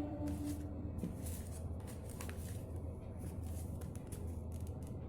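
Paper rustling with light handling taps as a warranty card and instruction booklet are handled, over a steady low hum.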